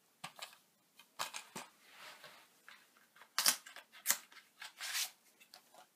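A Blu-ray case and its slipcase being handled: a string of light clicks, taps and soft rustles, with the sharpest knocks about three and a half and four seconds in.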